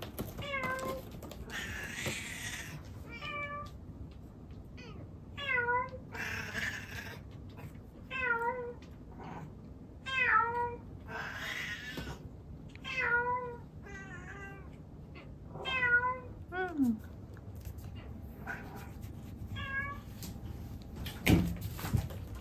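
A cat meowing over and over, about ten drawn-out calls that fall in pitch, one every second or two, with a few harsh noisy bursts between them. This insistent crying is typical of a cat newly taken in from the street. A single thump comes near the end.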